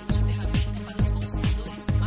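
Electronic dance music with a steady kick drum about twice a second over a held bass line.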